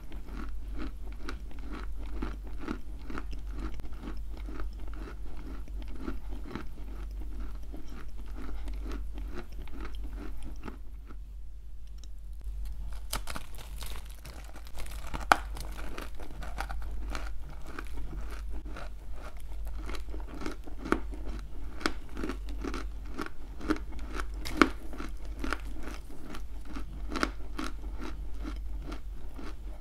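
Close-up crunching and chewing of a lump of clay, about two chews a second, with a short pause about eleven seconds in and a few sharper bites after it. A steady low hum runs underneath.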